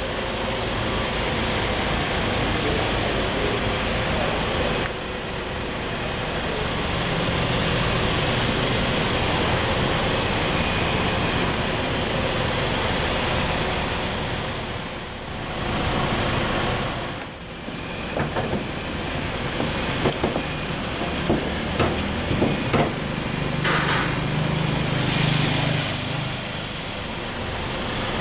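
2010 Daihatsu Terios TX idling with a steady low hum, its sound mixed with camera-handling noise. A run of sharp clicks and knocks comes in the second half.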